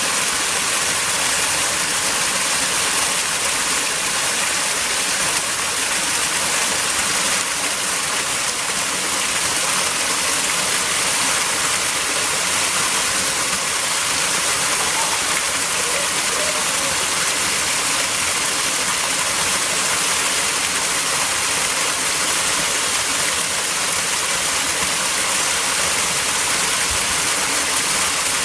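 Waterfall rushing steadily, the water pouring in an unbroken loud rush.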